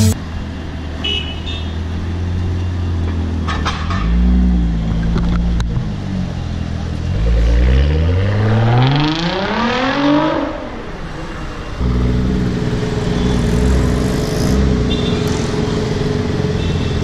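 Nissan GT-R's twin-turbo 3.8-litre V6 through a Fi Exhaust aftermarket system: a low rumble with short blips of throttle, then one long rising rev about seven seconds in that drops off sharply a few seconds later. From about twelve seconds on there is a steadier low drone with a held tone over it.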